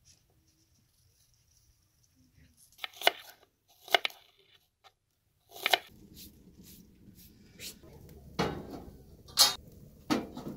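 Kitchen clatter: a series of sharp clinks and knocks of pots, dishes and utensils, about seven in all, with a low steady noise underneath from about halfway through.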